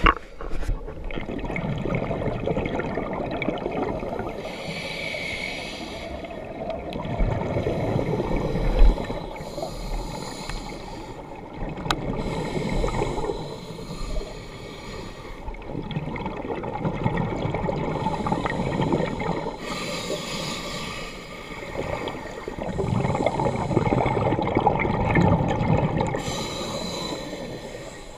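Scuba diver breathing through a regulator underwater: a short hiss on each inhale, then a longer low gurgling rush of exhaled bubbles, repeating several times.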